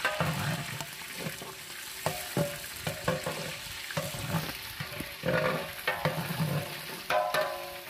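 Chicken pieces being lightly fried in hot oil in a large aluminium pot, sizzling steadily, while a long metal ladle stirs them, scraping and knocking against the pot now and then.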